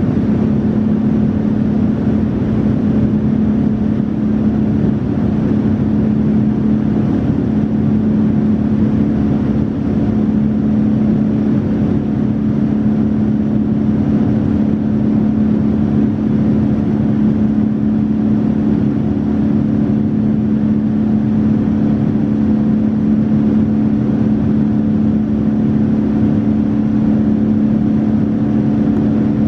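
Cabin noise of a Boeing 787-9 climbing after takeoff. The Rolls-Royce Trent 1000 turbofans give a steady drone: a low hum of two held tones over an even rush of airflow.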